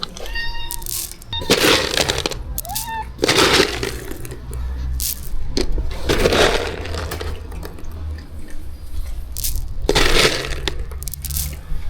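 Dry cat food poured out in about five rattling, crunchy bursts, a few seconds apart. A cat meows a couple of times in the first few seconds.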